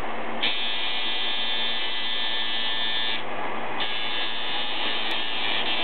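Tattoo machine buzzing steadily as the needle works into skin, its high buzz dropping out for about half a second a little past halfway before resuming.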